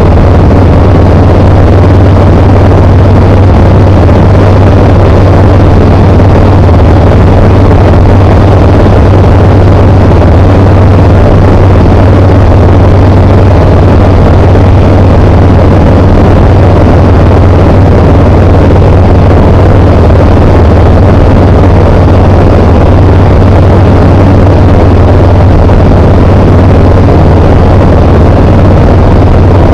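Tecnam P92 Echo Super light aircraft's engine and propeller running steadily in flight: a loud, even drone with a constant low hum and no change in power.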